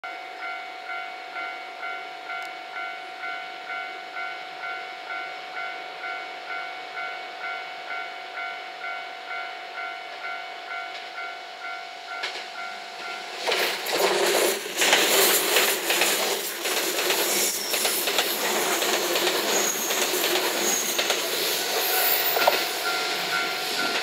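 Japanese level-crossing warning bell ringing, about two strikes a second. Then, about 13 seconds in, a six-car JR West 227 series electric train passes close by and drowns the bell out with loud wheel and rail clatter, and the bell comes through again near the end.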